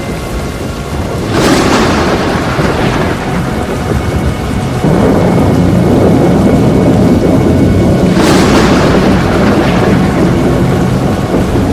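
Thunderstorm with heavy rain and a continuous rushing noise, broken by two sudden thunder cracks that rumble away, one about a second in and one about eight seconds in.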